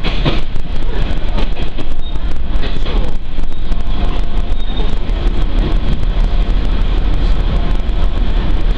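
Interior of a Tenryu Hamanako Railroad diesel railcar running along the line: a steady low rumble from the engine and the wheels on the rails, with irregular knocks and rattles from the track.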